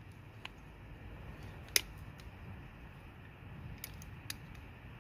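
A few sharp metallic clicks of tools and small parts being handled at a motorcycle's rear brake caliper while the pad retaining clip is taken out. There are about five clicks, the loudest about two seconds in, over a faint low hum.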